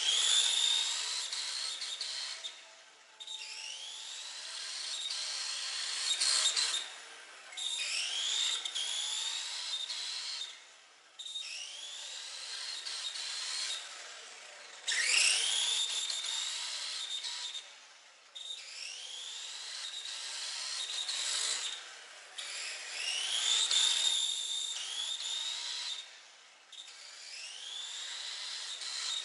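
Tamiya TT-01 RC car's brushed Light-Tune electric motor and shaft drivetrain whining in repeated bursts of acceleration, each a rising whine, with short let-offs every few seconds. The owner feels this motor hesitates, catching partway through acceleration.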